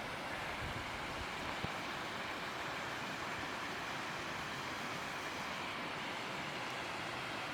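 Mountain stream water rushing over rocks, a steady, even rush that does not change, with a couple of faint low bumps in the first two seconds.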